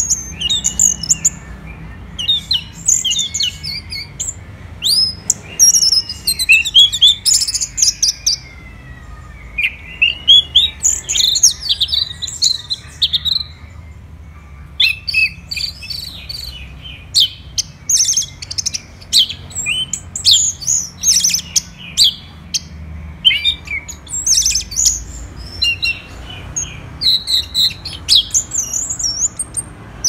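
Orange-headed thrush singing a long, varied song in dense runs of quick, high whistled and chattering notes, with a brief pause about halfway through.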